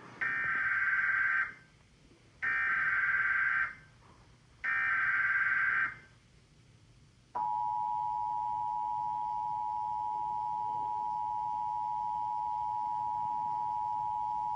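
Emergency Alert System alert tones: three buzzy data bursts (the SAME header), each about a second and a half long with short gaps between them. About seven seconds in, the steady two-tone attention signal begins and holds, announcing a flash flood warning.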